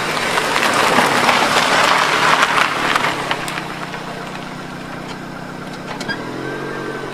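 Car engine running: a loud rush for the first few seconds, then settling into a steady low idle.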